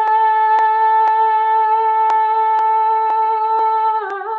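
A woman singing one long held note, steady in pitch, that dips briefly about four seconds in and then goes on. Faint even ticks, about two a second, run underneath.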